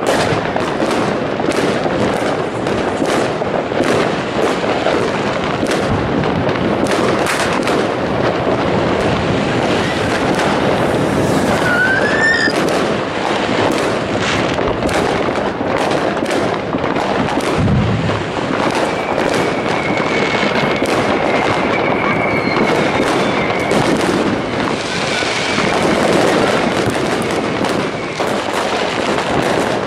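A dense, unbroken barrage of fireworks: overlapping bangs and crackling from many directions at once. A rising firework whistle comes about twelve seconds in, then a deep boom, and a long steady whistle runs from about nineteen to twenty-five seconds.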